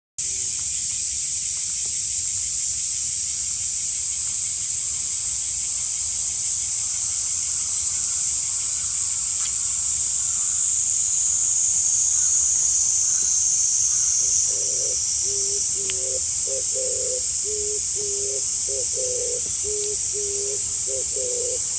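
Outdoor ambience: a steady, high-pitched hiss, with a low, rhythmic call starting about two-thirds of the way through and repeating in a regular pattern.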